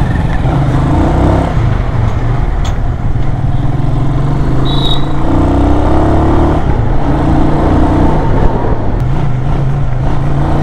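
Hartford Leopard 223 cruiser's 223 cc single-cylinder engine running at low road speed, heard from the saddle, its note rising and falling a little as the throttle changes.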